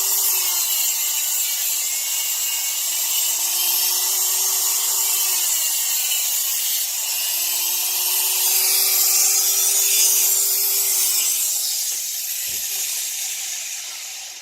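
A small high-speed power tool cutting. Its motor note sags twice under load and recovers, then dies away near the end.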